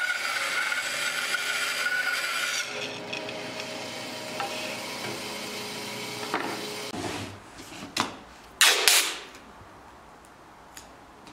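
Bandsaw cutting a curve in an oak board, running with a steady high tone; about three seconds in the cut ends and the saw runs on more quietly. Near the end, masking tape is pulled off the roll in two quick rips, the second longer and the loudest sound.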